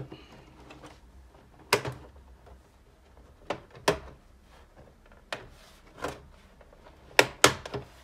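Plastic back panel of a Dell OptiPlex 3011 all-in-one PC being pulled off by hand: a series of sharp clicks and snaps as its retaining clips let go, with several close together near the end.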